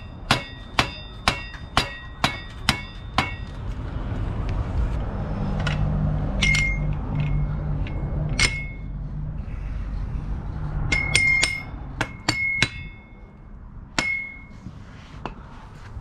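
Rubber mallet knocking a bottom bracket bearing into a BMX frame's bottom bracket shell: about seven ringing blows, roughly two a second, over the first three seconds. Later come scattered metallic clinks as the crank spindle is fitted through the bottom bracket.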